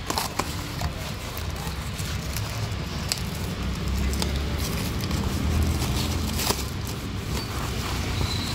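Cardboard box being torn open and handled, with scattered crackles and scrapes of cardboard and plastic wrapping, over a low steady rumble.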